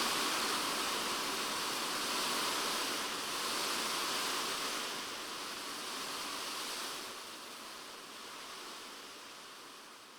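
Rain falling on a polycarbonate shed roof, heard from inside the shed as a dense, steady hiss. It fades out gradually over the second half.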